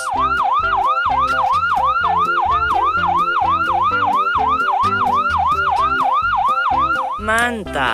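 Ambulance siren sound, a rapid wail sweeping up and down about three times a second, over background music.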